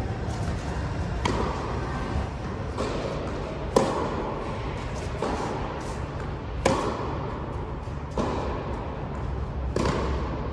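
Tennis ball struck back and forth by rackets in a baseline rally: sharp pops about every second and a half, the two loudest from the near player's shots, each ringing on in the large indoor hall.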